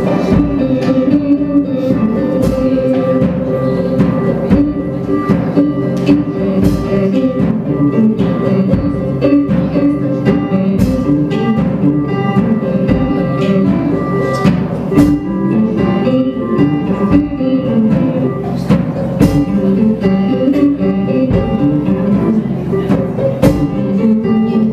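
A band playing live: sustained instrument tones with frequent drum hits.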